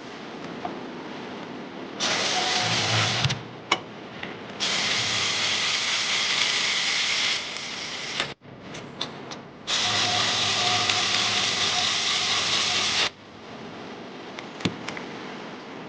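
A power tool run in three bursts of one to three seconds each, starting and stopping abruptly, with a few sharp clicks in the pauses between.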